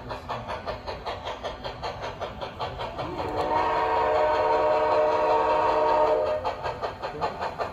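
Sound-equipped HO scale Bachmann Spectrum USRA light 2-10-2 steam locomotive model chuffing steadily. About three seconds in, it gives one long steam-whistle blast of several notes at once, lasting about three seconds.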